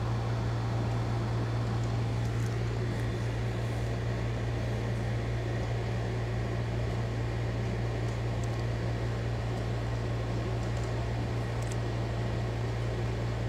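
A steady low machine hum holding one pitch throughout, with a few faint clicks.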